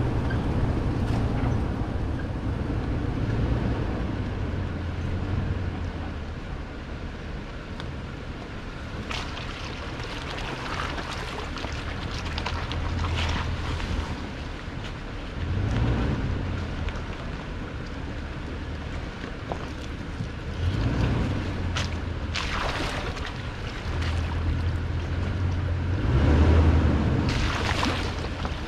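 2018 Toyota Tundra's V8 engine running at low speed as the truck crawls a rocky dirt off-road trail. The engine note rises and falls, and the tires crunch over rocks and dirt in several short bursts.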